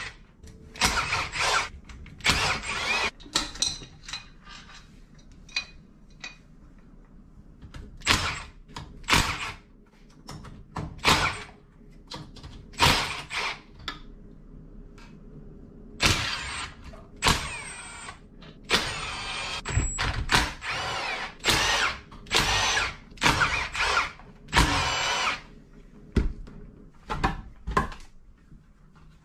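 A cordless power driver run in repeated short bursts, its motor whining up and down, undoing the bolts on a four-stroke dirt bike's crankcases, with clinks of tools and parts between the bursts.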